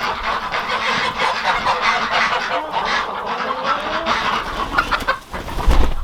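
A flock of farm poultry calling all at once, a dense overlapping din of clucking and honking. There is a brief low thump near the end.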